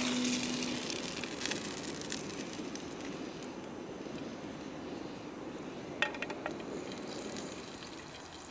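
Steak sizzling in a small camping frying pan on a gas canister stove, the sizzle slowly dying away as the meat is lifted out onto a plate. A few sharp clinks of a utensil about six seconds in.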